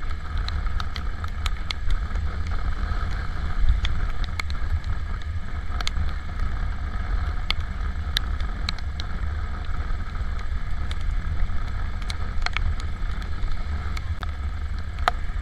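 Honda Supra GTR 150 motorcycle ridden in the rain: a steady wind rumble on the microphone with the engine running beneath it, and scattered sharp ticks of raindrops hitting the camera.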